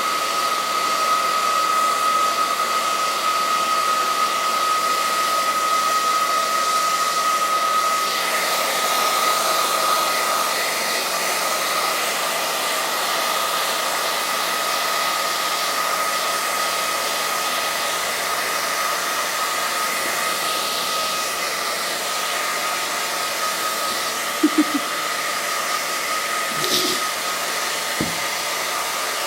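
Hair dryer running steadily, a rushing hiss with a high whine that fades about ten seconds in; a few brief clicks near the end.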